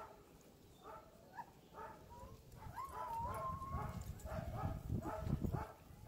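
Harnessed huskies of a sled-dog team whining and yipping in short repeated cries, with one longer wavering whine about three seconds in. A low rumbling noise runs under them in the second half.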